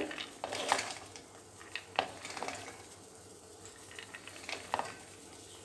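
Soaked chana dal scooped by hand from a plate and dropped into a steel mixer-grinder jar: scattered soft clicks and rattles of the split peas landing on the metal, with rustling of the hands in the grains.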